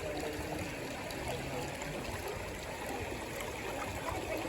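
River water running and gurgling steadily over stones.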